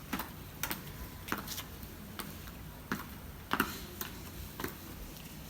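Footsteps in high heels: a series of sharp clicks at walking pace, about one and a half steps a second.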